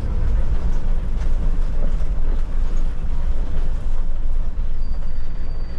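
Cabin noise of a Solaris Urbino IV 12 city bus under way: a steady low rumble from the engine and tyres on the road. A faint, high, steady beep sounds near the end.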